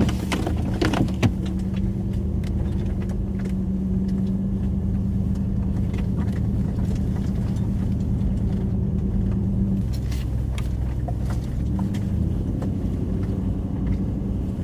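Nissan Titan pickup heard from inside the cab, droning steadily as it pushes slowly through deep snow. A steady hum drops out for about two seconds near the end, and there are a few scattered clicks and knocks.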